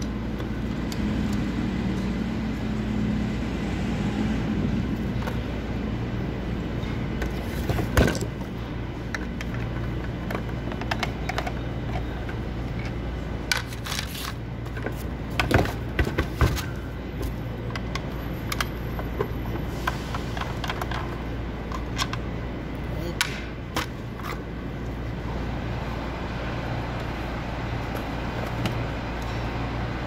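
Clicks, knocks and scrapes of a DeWalt D25871 jackhammer's plastic and metal housing being handled and laid on a wooden workbench, over a steady low hum. There is a sharp knock about eight seconds in and a cluster of knocks around fifteen to sixteen seconds.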